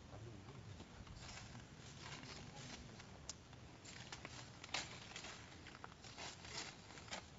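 Faint scattered crackling and rustling of dry leaves and twigs, with a few sharper snaps around the middle and near the end.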